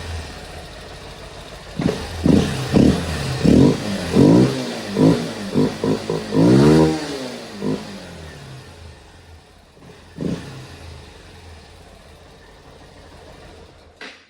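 Honda Bros 160's single-cylinder air-cooled engine revved in a series of quick throttle blips, with one longer rev about 7 s in, then dropping back to a lower idle with one more blip a little after 10 s. It is running with the air-intake hose by the air filter removed, which changes the intake sound completely when the throttle is opened.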